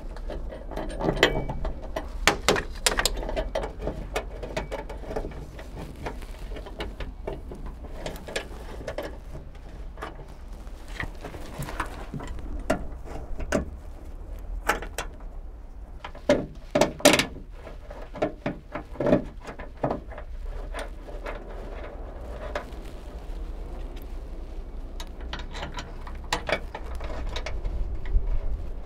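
Scattered clicks and knocks of hand work at a 2001–2005 Honda Civic trunk lid's hinges: a ratchet with a 10 mm socket tightening the hinge bolts and metal parts being handled, over a low steady rumble.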